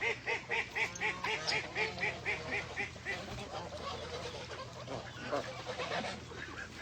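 Domestic ducks and geese calling: a fast run of repeated calls, about four a second, that stops about three seconds in, followed by softer, scattered calls.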